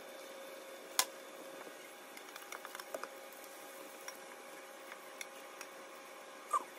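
A wooden spatula and a metal turner knocking and scraping against a nonstick frying pan as an egg omelette is rolled up. There is one sharp knock about a second in, a quick run of light taps around three seconds, and a short clink near the end, over a faint steady hum.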